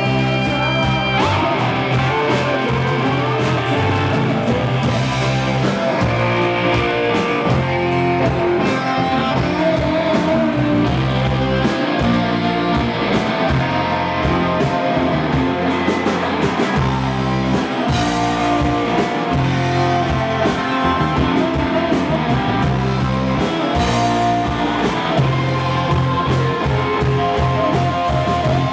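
Live blues-rock band playing an instrumental passage: guitar over bass and a steady drum beat, with no singing.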